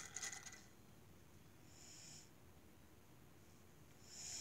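Mostly near silence: a small click and a brief handling rustle at the start, then two short, soft breaths through the nose, about two seconds in and near the end.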